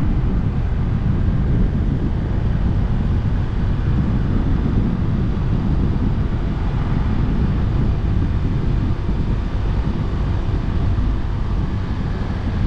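Wind buffeting the microphone on a moving motorcycle, a steady low rumble with engine and road noise underneath.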